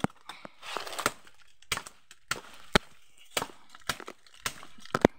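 Dry grass stems and dead leaves snapping and crunching as someone pushes through dense undergrowth on foot: a dozen or so irregular sharp cracks, with a short stretch of rustling about a second in.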